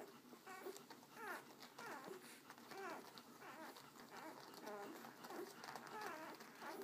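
Newborn American Akita puppies squeaking and whimpering while they nurse: short, high cries that rise and fall, one or two a second.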